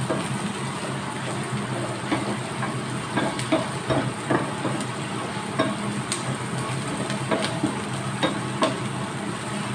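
Chopped onions and garlic sizzling in oil in a frying pan while a wooden spatula stirs them, with scattered light scrapes and taps of the spatula against the pan.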